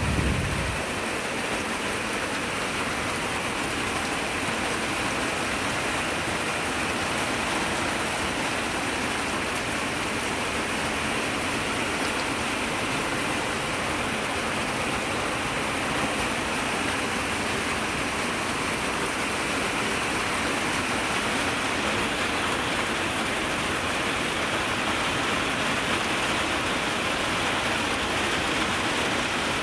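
Heavy rain falling in a steady downpour, hissing evenly on leaves and surfaces, with a brief low bump in the first second.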